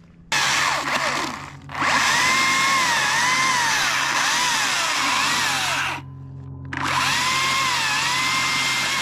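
Two-stroke chainsaw cutting into the trunk, its pitch sagging and recovering under load as it cuts the face notch after the back cut and wedge. It drops briefly to idle about six seconds in, then revs up and cuts again.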